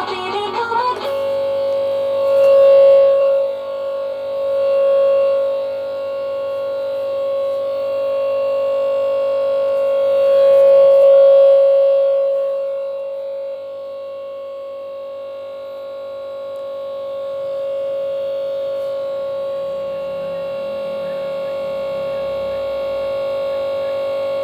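A pop song playing from a laptop's speakers breaks off about a second in into a steady droning buzz stuck on one pitch. It is the sound card looping its last fragment of audio after a Windows blue-screen crash, and it swells louder a few times in the first half.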